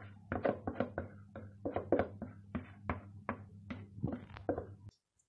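A metal spoon scraping and knocking against a bowl as runny cake batter is emptied into a baking pan, in short strokes about two or three a second. A steady low hum underneath cuts off suddenly near the end.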